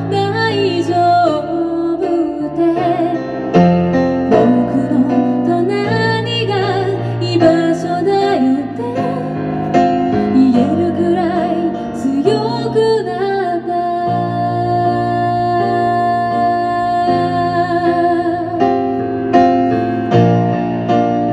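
A woman singing live while accompanying herself on an electric keyboard, her voice wavering and sliding between notes over sustained piano chords.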